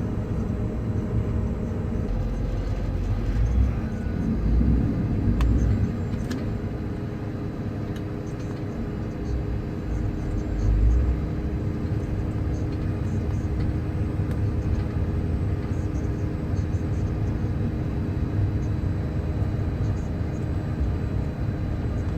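Grimme potato harvester running steadily while it is run empty at the end of the harvest: a low, continuous machine drone with a steady hum, swelling a little a few seconds in and again about halfway, with a few faint ticks.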